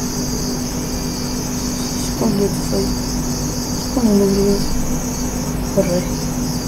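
Steady high-pitched, insect-like chirring with a steady low hum beneath it, and a few short, quiet bits of a voice about two, four and six seconds in.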